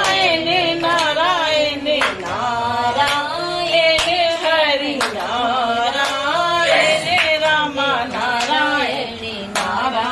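A devotional bhajan sung in kirtan style, with hand claps keeping time about once a second.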